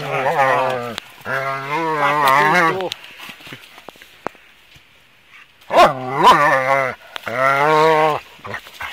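A dog making long, drawn-out grumbling calls as it works at a log: four calls of about one to one and a half seconds each, low and wavering in pitch, with a quiet gap of about two seconds in the middle.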